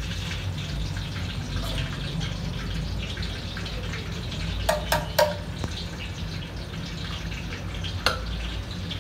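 Chicken frying in a steel pot with a faint steady sizzle over a low hum, and a few sharp metal clinks of a spoon against the pot: three close together about halfway through and one near the end.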